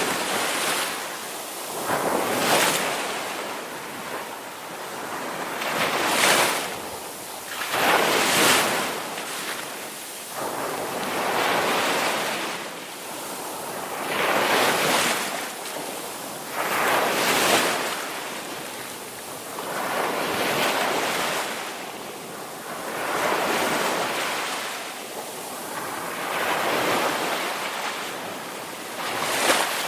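Ocean surf on a beach: waves break one after another every few seconds, each building to a rushing wash and then falling away.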